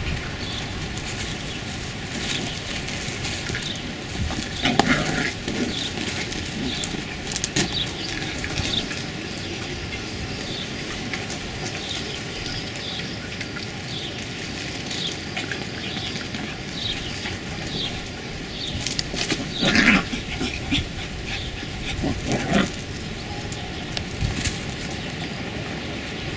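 Beagle puppies giving short yips and whimpers now and then, with louder cries about five seconds in and again around twenty seconds in, over a steady low background hum.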